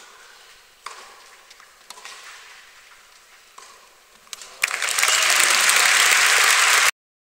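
Tennis ball struck by rackets in a rally, a few sharp hits roughly a second apart echoing around the indoor arena, then loud crowd applause breaking out as the point ends, cut off abruptly near the end.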